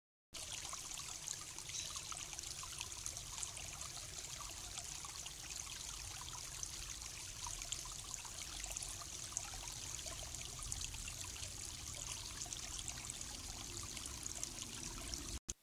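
Shallow rocky creek trickling over stones, a steady rush of running water heard through a trail camera's microphone. It starts abruptly and cuts off suddenly near the end.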